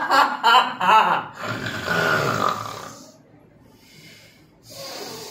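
A young man laughing loudly in quick bursts, then a long, harsh, breathy exhale from the throat; near the end another rough breath begins.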